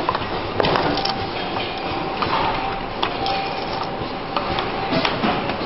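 Automatic four-station relay soldering machine running: a steady mechanical din with irregular clicks and clacks from its moving fixtures and indexing table.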